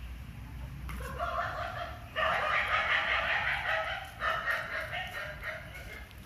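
An animal calling, drawn out: one call starts about a second in and grows louder, and a second follows after a short break about four seconds in.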